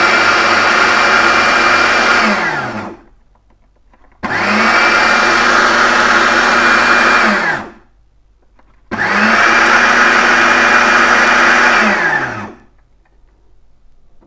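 Electric food processor blending egg yolks, condensed milk and salt in loud pulses. It is already running, stops about three seconds in, then runs twice more for about three and a half seconds each, the motor's pitch rising as it spins up and dropping as it winds down at each stop.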